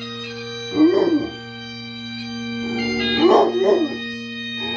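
A dog howling along to bagpipe music, twice: a short howl about a second in and a longer one from near three seconds, over the bagpipes' steady drone.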